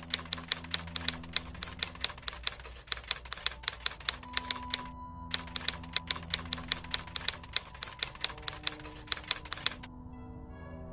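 Typewriter keystroke sound effect, about four rapid clicks a second, with a short break about five seconds in; the clicks stop about ten seconds in. A low, sustained music drone runs underneath.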